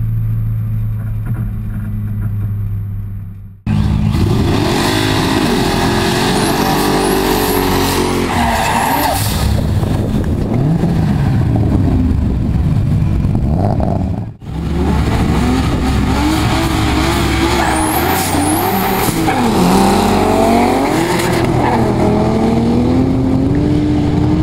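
Car engines revving hard up and down with high tyre squeal and skidding as a car does a smoky burnout. There are two sudden cuts, one after about three and a half seconds and one at about fourteen and a half. Before the first cut there is a steady engine drone heard from inside a car.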